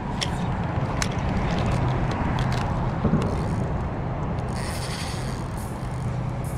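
Spinning fishing reel being cranked to reel in a hooked fish just after a bite, its mechanism clicking now and then, over a steady low hum.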